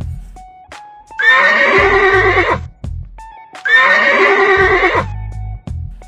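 A horse whinnying twice, each call about a second and a half long, over background music with a low bass line.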